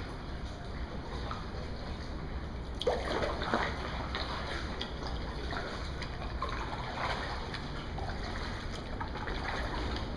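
Water splashing and trickling from kayak paddle strokes, the blade dipping and dripping at irregular intervals, with a sharper splash about three seconds in. A steady low rumble runs underneath.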